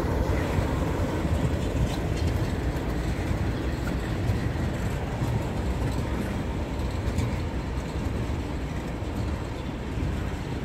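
Freight train of tank cars rolling past close by: the steady noise of steel wheels on rail, with faint scattered clicks.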